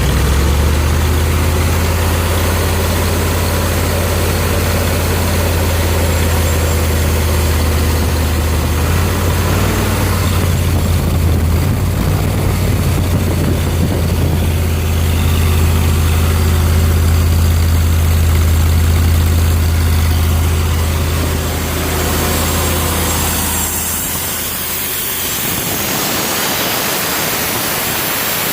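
Ford engine of an engine-driven air compressor idling steadily after starting, then dying near the end, leaving a steady hiss.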